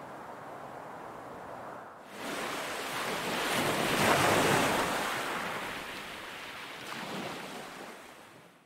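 Ocean surf: after a quieter steady hiss, a wave comes in about two seconds in, swelling to its loudest around four seconds, with a smaller surge near seven seconds, then washing away and fading out at the end.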